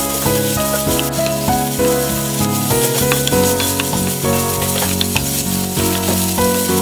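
Cabbage, pork and seafood sizzling steadily in a frying pan as they are stir-fried over high heat, with background music playing over it.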